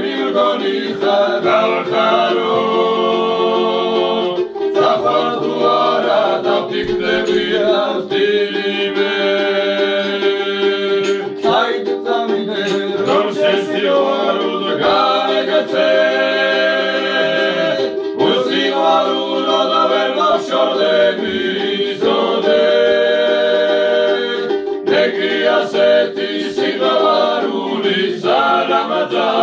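A group of men singing a Georgian polyphonic folk song in close harmony, with a low held drone note sustained beneath the moving upper voices.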